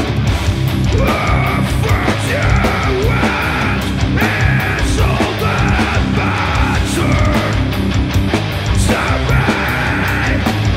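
Doom metal band playing live: heavily distorted electric guitar and bass over drums and crashing cymbals, with a vocalist singing in separate phrases that begin about a second in.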